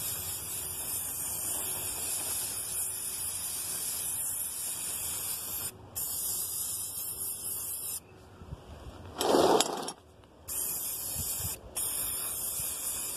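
Krylon rust-protector black spray paint hissing from its aerosol can as it coats a steel trap. There are several sprays with short pauses between them, and a brief louder sound comes between sprays about nine and a half seconds in.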